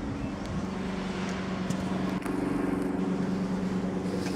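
Helicopter passing overhead: a steady engine-and-rotor drone with a fast low beat, plus a few light clicks.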